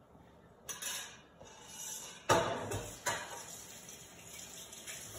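Kitchen clatter: metal utensils and cookware knocking, a short knock about a second in, then the loudest knock about two seconds in with another just after.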